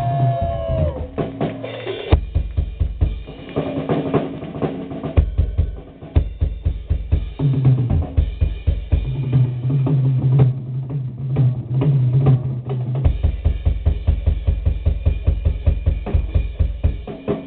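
Rock band playing live: the drum kit is to the fore, bass drum and snare keeping a fast steady beat, over bass guitar and electric guitar, with a couple of short breaks in the low end.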